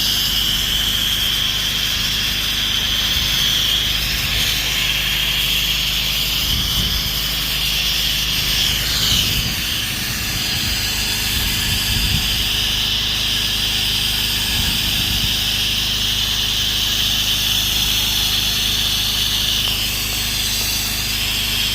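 A gas-engine pressure washer running steadily, its Predator 459 engine droning under a constant hiss of high-pressure water spraying from the wand onto a screen enclosure.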